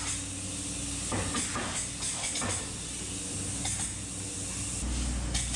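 Closed-cell spray foam gun hissing in short bursts as foam is sprayed into wall stud cavities, over a steady low hum.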